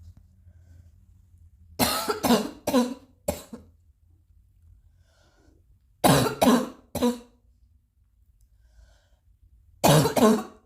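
Coughing in three bouts of three or four coughs each, a few seconds apart: a lingering cough that is still hanging on.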